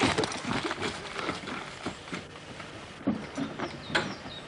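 Hurried footsteps with irregular knocks and rattles of gear as soldiers run and clamber aboard an open military jeep; the knocking is busiest in the first two seconds, then sparser.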